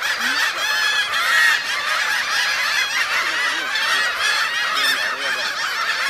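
A flock of gulls calling over one another: a dense chorus of short rising-and-falling cries, many at once.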